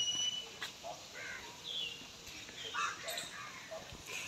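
Faint, scattered short bird calls, several in a few seconds, one of them falling in pitch.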